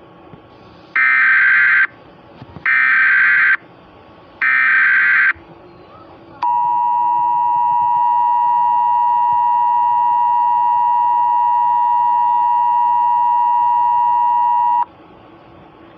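Emergency Alert System signal: three short screeching bursts of SAME header data, each just under a second long, then the two-tone attention signal held steady for about eight seconds before cutting off.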